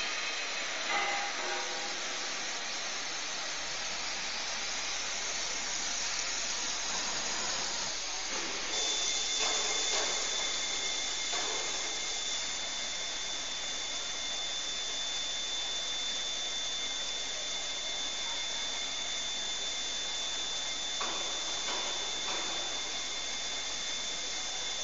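CNC machine tool cutting an eccentric on a metal workpiece under coolant spray: a steady hiss of machining and spraying coolant, with a thin steady high whine that comes in about nine seconds in.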